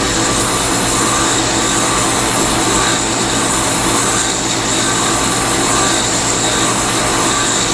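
Wood lathe running steadily with a low hum, a small file rasping against the spinning wooden chess piece.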